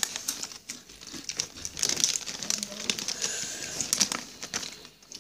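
Crinkling and rustling of a Doritos chip bag as a hand reaches in and takes out a chip, in many quick crackly bursts.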